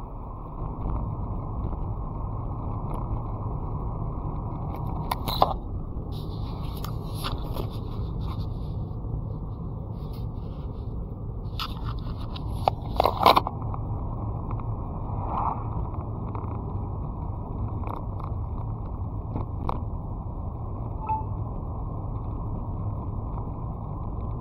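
A car driving on the road: steady road and engine noise, with a few sharp knocks, the loudest a quick cluster about 13 seconds in.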